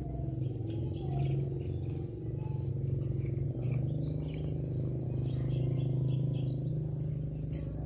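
Scattered short, high animal chirps, some rising in pitch, over a steady low hum.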